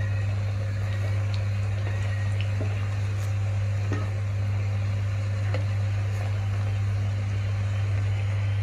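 Bottle-gourd pakoras deep-frying in hot oil in a kadhai, the oil sizzling steadily, with a few light clicks of a steel slotted spatula turning them. A loud, steady low hum runs underneath.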